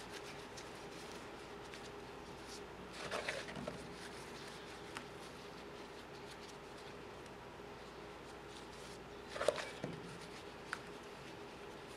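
Faint handling sounds of plastic-gloved hands working bleach paste onto a bear skull's lower jaw: soft rustles and a few small taps, the sharpest about nine and a half seconds in.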